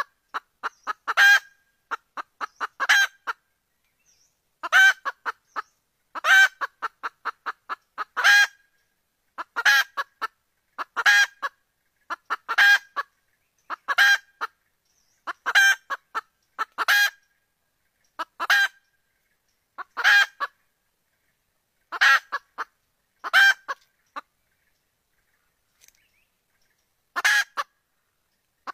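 Junglefowl hen calling over and over: each call is a quick run of short clucks leading into one louder note, repeated about every one and a half to two seconds, with a pause of a few seconds near the end. It is the hen's mating call, which draws junglefowl cocks in.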